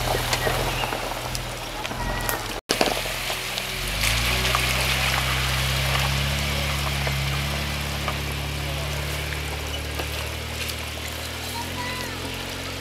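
Jeep Wrangler's engine running at low revs as it crawls along a dirt track, with a crackling noise of tyres over dirt and stones. The engine grows louder about four seconds in, then slowly fades as the Jeep pulls away. The sound cuts out completely for an instant about two and a half seconds in.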